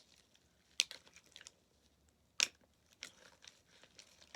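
Sticky, half-activated slime being kneaded and pulled by hand, with soft crackling and two sharp sticky pops about a second in and near the middle.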